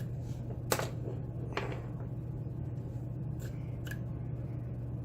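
Lock pick and tension wrench working the pin tumblers of a pin-tumbler lock during single-pin picking: a few small, sharp metallic clicks and scrapes, the loudest just under a second in and another about a second and a half in, over a steady low hum.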